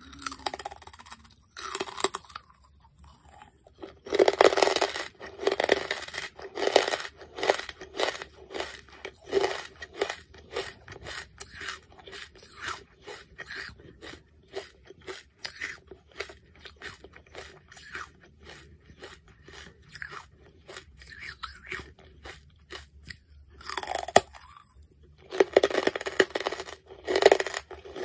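Close-miked mouth sounds of a person biting into and chewing a hard block of charcoal: rapid crisp crunches and crackles. They are loudest after the first bite about four seconds in, thin out as it is chewed down, and come loud again with a fresh bite near the end.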